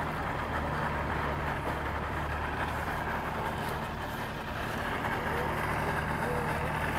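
Mercury two-stroke outboard motors idling steadily with a low, even hum. They are idled up a little high, which is taken as a way to keep them from stalling when shifted into gear.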